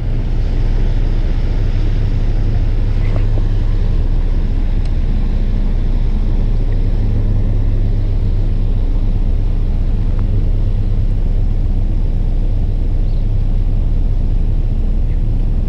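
Fishing boat's engine running steadily under way, a constant low hum.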